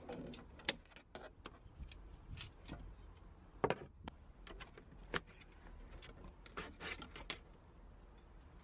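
Plastic trim covers being worked off a VW Lupo GTI's front seat runners: scattered light clicks, taps and rattles, with a few sharper snaps among them.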